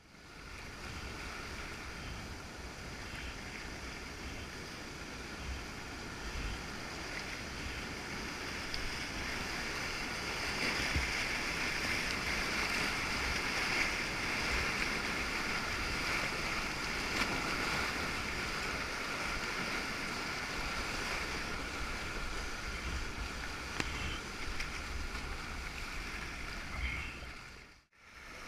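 Whitewater rushing and splashing around a sea kayak's bow as it surfs a tidal standing wave, picked up by a deck-mounted action camera, with low gusty rumbles on the microphone. The rush is loudest through the middle stretch.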